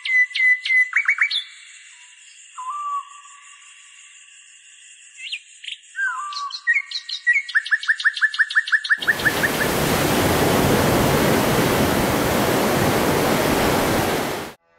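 Birds calling in the open for the first nine seconds or so: scattered chirps and whistled notes, then a quick run of about ten repeated calls, over a faint steady high tone. After that, the loud, even rush of surf washing over sand takes over and cuts off sharply just before the end.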